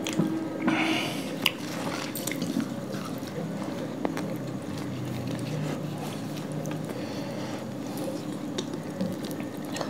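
Close-up wet eating sounds of people eating paratha and chicken curry with their hands: chewing, squishing and tearing flatbread, with scattered short sharp clicks, the loudest about a second and a half in.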